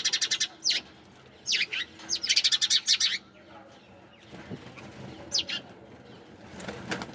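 Sparrows chirping. There is a fast rattling run of chirps at the start and another about two to three seconds in, with single sharp chirps between them and near the end.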